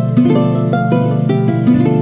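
Background music played on plucked strings, a steady run of notes.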